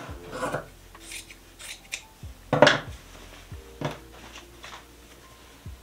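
Cotton fabric scraps and a pair of scissors being handled on a wooden tabletop: a few short rustles and clacks, the loudest about two and a half seconds in.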